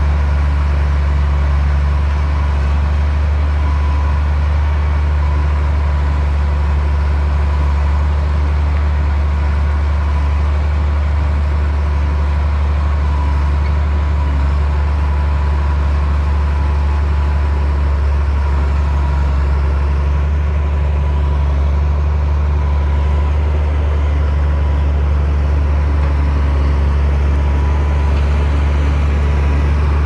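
Komatsu D60P bulldozer's diesel engine running steadily, a deep even drone that holds the same level throughout.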